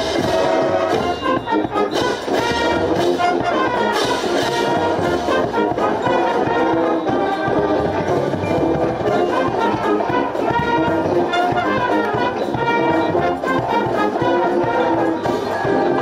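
Marching band playing: a full brass section of trumpets, trombones and sousaphones carries the tune over steady strokes of marching bass drums.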